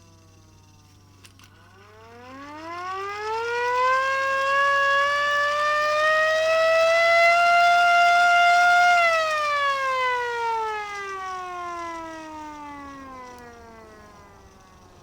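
Handheld hand-cranked air raid siren winding up into a rising wail, holding a steady high tone for about five seconds, then winding down in a long falling wail. At the start the tail of an earlier wind-down fades out, with a click about a second in.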